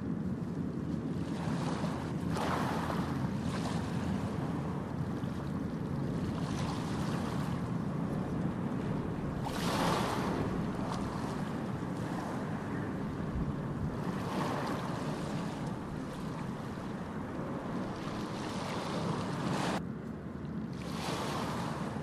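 Ocean surf on a beach: a steady wash of waves, swelling louder as a wave breaks every few seconds.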